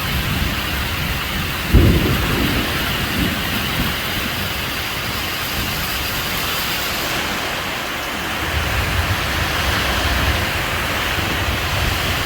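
Storm of heavy rain and strong wind, a steady loud rushing, with a sudden deep rumble about two seconds in and another stretch of low rumbling later on.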